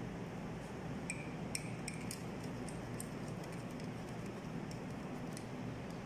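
A few light clicks and taps from a small screwdriver working a wire into the screw terminal of a plastic roller-shutter switch, over a steady low hiss.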